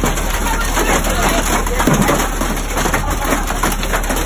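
Heavy hail and rain pelting down: a dense, steady patter of many small impacts.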